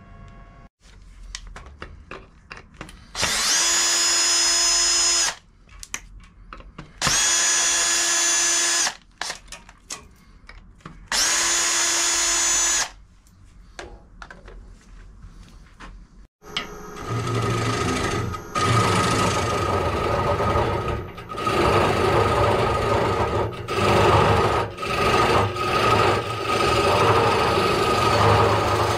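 A power drill runs three times for about two seconds each, driving screws to fix a faceplate to a wooden bowl blank. From about 17 s a wood lathe runs while a bowl gouge cuts into the spinning blank.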